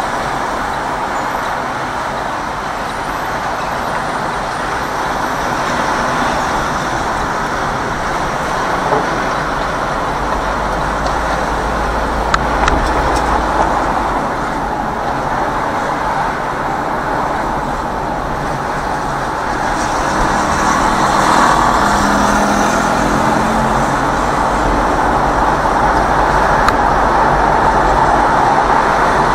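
Steady road and traffic noise heard from inside a car driving through city traffic, a rush of tyres and engines that grows a little louder in the last third, with a few short clicks about halfway through.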